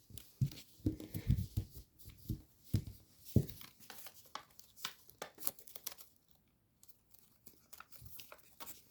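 Paper being folded and creased by hand: irregular crinkling and sharp crackles of thick folded layers, stopping for about a second a little past the middle.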